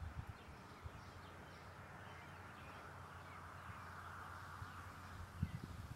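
Faint outdoor ambience: a steady hiss with faint bird calls, and a few dull low thumps, the loudest near the end.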